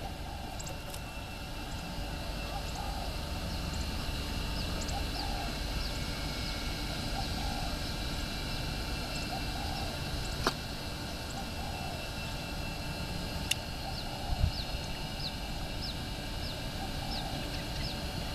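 Birds calling outdoors: repeated low notes about a second apart and many short high falling chirps, over a steady low rumble. A few sharp clicks partway through.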